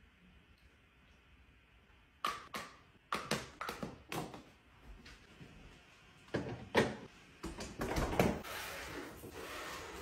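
Baby bottles and their lids knocking and clattering as they are handled on a kitchen counter and set into a refrigerator. After a quiet start, a run of short knocks begins about two seconds in and is loudest in the second half.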